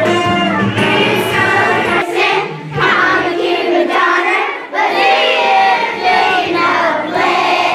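A large group of young children singing a song together, with music accompaniment underneath.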